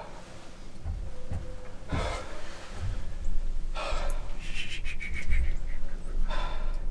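A man breathing hard, several deep breaths about two seconds apart, with a low rumble underneath: the hunter catching his breath in excitement just after shooting a buck.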